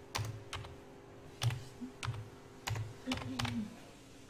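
Computer keyboard typed on slowly, one key at a time: separate clicky key presses with a soft thud, about two a second and unevenly spaced, as a word is picked out letter by letter.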